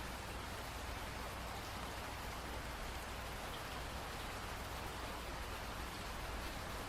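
Steady rain falling, an even hiss of drops without breaks, with a low rumble underneath.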